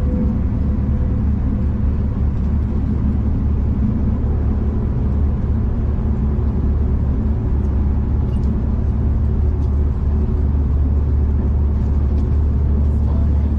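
Steady low rumble and hum of a V/Line passenger train running along the line, heard from inside the carriage.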